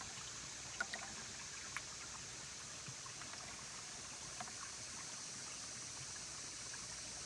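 Faint, steady outdoor hiss by a creek, strongest high up, with a few small sharp clicks or taps about a second in and again near two seconds.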